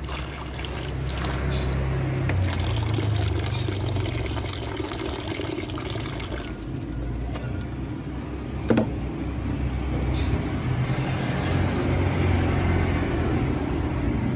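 Water pouring and splashing steadily, with a single sharp knock a little past halfway.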